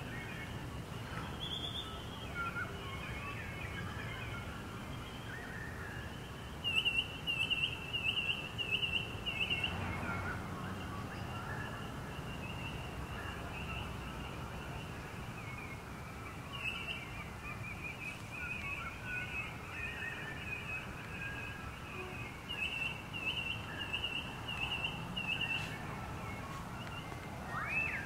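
Australian dawn chorus of noisy miners, currawongs and magpies: many overlapping calls and whistles, with a run of quick repeated chirps about seven seconds in and another a little over twenty seconds in.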